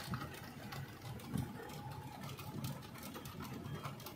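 Low steady hum of a car heard from inside the cabin, with scattered light ticks.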